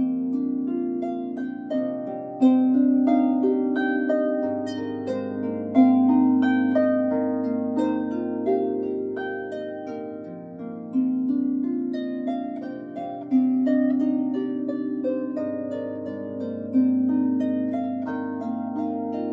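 Solo Salvi Titan lever harp with 38 silkgut strings, played by hand: a melody of plucked notes ringing into one another over long-sounding low bass notes, with a stronger pluck every few seconds.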